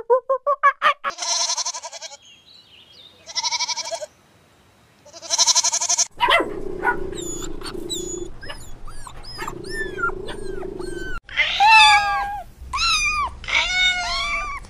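A sequence of different animal calls: three rough, bleat-like calls about a second each, then a run of many short arched chirps over a steady low hum, and a cluster of louder arched calls near the end.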